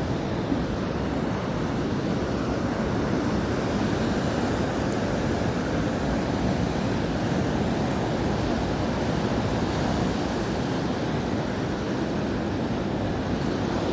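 Ocean surf breaking and washing up a sandy beach, heard as a steady, unbroken rush.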